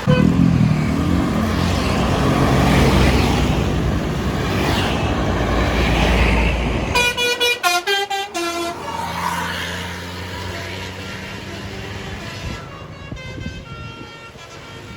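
Tour bus passing close with loud engine and road noise, then, about seven seconds in, its telolet basuri musical horn plays a quick tune of short notes at stepping pitches. Fainter horn notes repeat near the end as the bus moves off.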